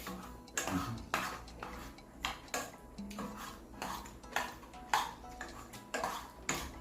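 Spoon and chopsticks clinking against a bowl while noodles are stirred and lifted out: a handful of sharp, irregular clinks.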